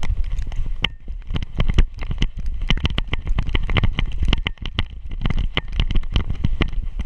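Rapid, irregular knocks and rattles from a camera harness jostling on a running dog's back, over a low rumble of wind and handling noise.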